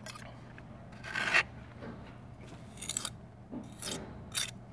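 Small trowel scraping Jahn repair mortar onto chipped terra cotta, pulling it into the edge of the patch in a handful of short scraping strokes, the strongest about a second in.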